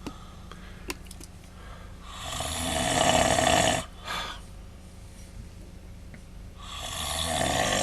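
A man snoring loudly in his sleep, in long rattling breaths about four to five seconds apart. One full snore comes about two seconds in, and the next swells up near the end.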